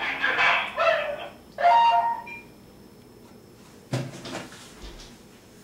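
Three short wordless vocal calls in the first two seconds. About four seconds in, a knock and light rattle as a mobile phone is handled on a wooden table.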